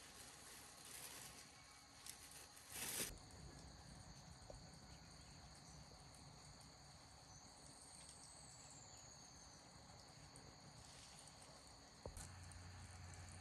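Faint, steady high-pitched chirring of insects, with a few soft rustles in the first three seconds. About twelve seconds in there is a soft click, then a low steady hum.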